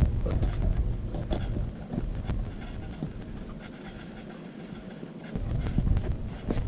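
Husky puppy panting, heard up close through a camera strapped to her harness. A heavy low rumble of the harness and fur rubbing against the camera fills the first two seconds, eases off, and returns near the end, with a few scattered clicks.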